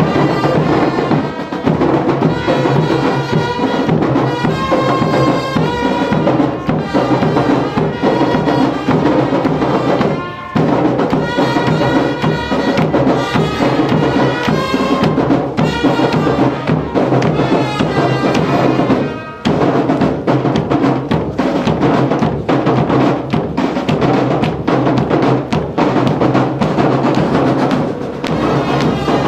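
Music with drums and other percussion over pitched instruments, breaking off briefly twice, about ten and nineteen seconds in.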